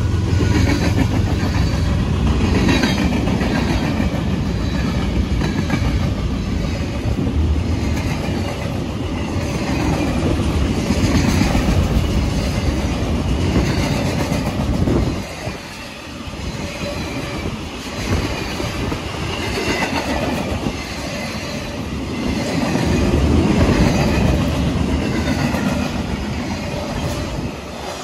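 CSX freight train cars rolling past, their wheels clicking and clacking over the rail joints in a steady rhythm, with a brief lull about halfway through.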